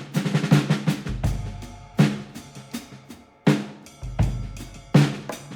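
Background music: a drum-kit beat of snare and kick hits with deep bass swells and short pitched notes.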